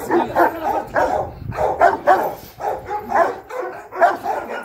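Large black dog barking rapidly and repeatedly, about two to three barks a second: aggressive barking at a man provoking it with a plastic chair in guard-dog training.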